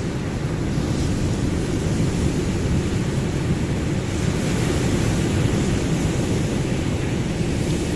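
Ocean surf washing steadily, with a wave swelling in hiss about halfway through.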